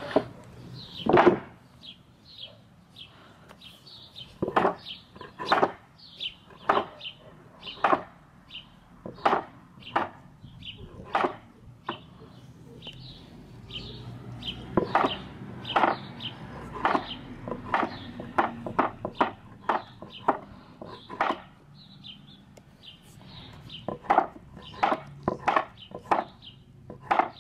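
A run of irregular sharp clicks and knocks, one or two a second and unevenly spaced, with faint short higher-pitched sounds between them.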